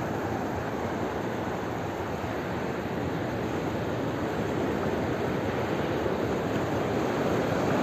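Sea surf washing onto a flat sandy beach: a steady rush of small breaking waves, rising slightly toward the end.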